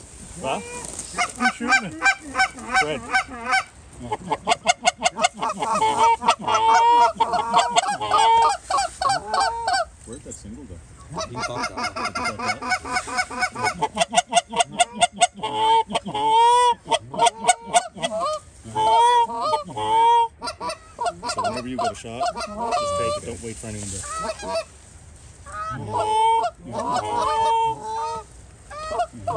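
Canada geese honking and clucking: many loud calls overlapping, often in fast runs of short clucks, with brief lulls twice.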